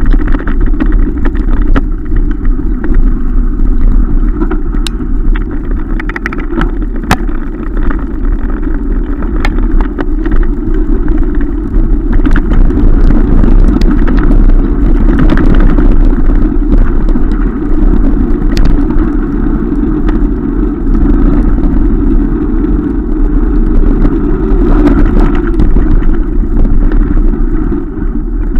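Wind rushing over the microphone of a camera on a mountain bike moving fast down a rough dirt track, with the rolling bike giving off scattered sharp clicks and knocks.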